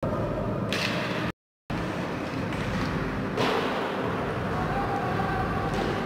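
Ice hockey game in a rink: steady arena noise of skating play, with a short sharp scrape just under a second in and a louder one about three and a half seconds in. The sound drops out completely for a moment about a second and a half in.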